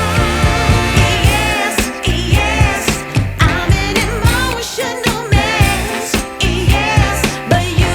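Background music: a sung pop or soul-style song with a vibrato vocal line over a steady beat.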